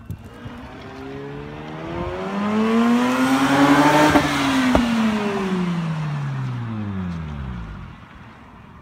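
Mazda RX-8's two-rotor Renesis rotary engine revving hard: the exhaust note climbs in pitch and loudness for about three seconds, then falls away over the next four as the revs drop. A sharp click sounds shortly after the peak.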